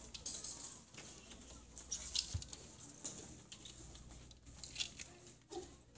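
Faint rustling and crackling with scattered short clicks, loudest in a burst about half a second in.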